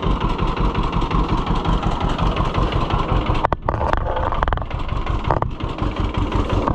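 John Deere G's two-cylinder engine running at idle with a steady, evenly pulsing beat.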